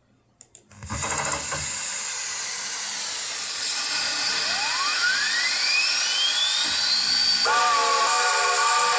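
Steam locomotive sound: a loud steady hiss of steam builds up after a few clicks, with a thin whine rising in pitch over about three seconds. Then a chime steam whistle of several tones starts and holds.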